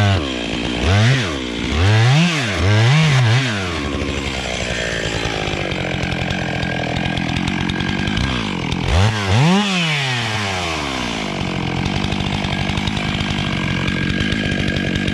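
Stihl MS 661 C-M chainsaw, a large two-stroke, revved up and back down in four short blips in the first few seconds, settling to a steady idle, with one more brief rev about nine seconds in before idling again.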